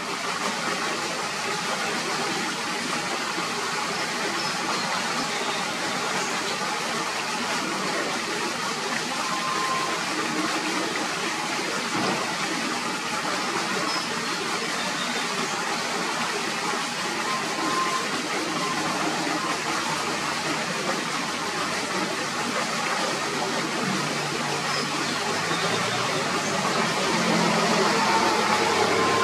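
Steady, even rushing outdoor background noise with a few faint short chirps. A low hum comes in near the end and the noise grows a little louder.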